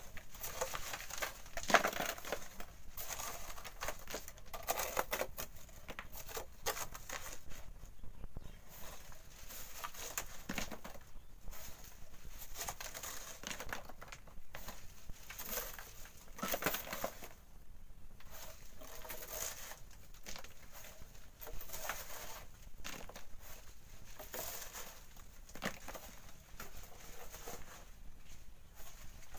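Hand tools (hoe and shovel) scraping and digging into wet volcanic sand and gravel, the loads tipped into steel wheelbarrows, in irregular crunching strokes with a louder knock about two seconds in.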